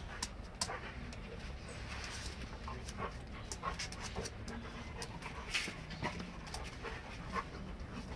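A setter and a boxer play-fighting: dogs panting and scuffling, with many short sharp clicks and scrapes of claws and bodies on a tiled floor.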